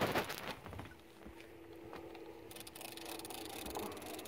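Fishing reel being wound, a rapid fine clicking, over a faint steady hum, with a brief rustle of handling at the start.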